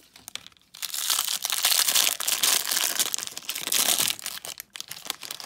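Crinkly plastic wrapper being torn and peeled open by hand around a small doll. It crackles loudly for about three seconds, then tails off into lighter rustles near the end.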